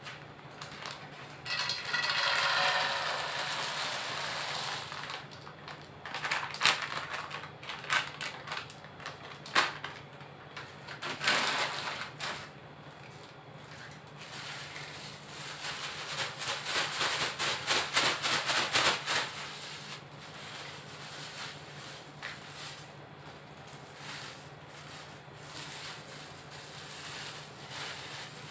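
Raw peanuts poured from a plastic bag into a metal wok, a dense rattling rush lasting a few seconds, followed by several spurts of quick clicking and crackling as the nuts settle and the plastic bag is handled.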